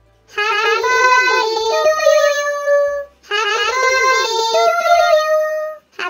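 Child-like synthetic voice singing a birthday song in two matching phrases, with a short break between them, over a faint low backing.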